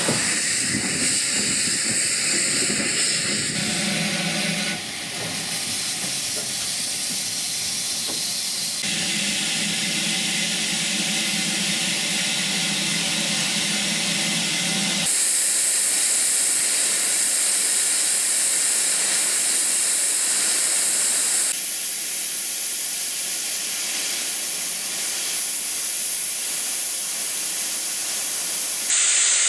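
Lancashire & Yorkshire Railway Class 27 0-6-0 steam locomotive No. 52322 working, with steady steam hissing. The sound changes abruptly several times, and the high hiss is loudest in the middle stretch.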